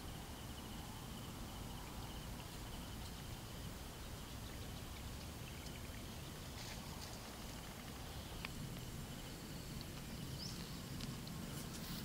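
Faint outdoor background noise: a steady low rumble with a thin, steady high-pitched tone over it, and a few small clicks and ticks.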